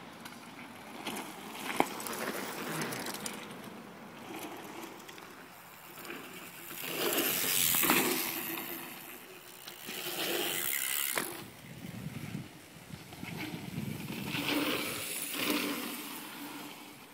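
Mountain bikes riding fast down a packed-dirt trail: a rush of tyre and riding noise that swells and fades in waves over the rollers, with a few sharp clacks.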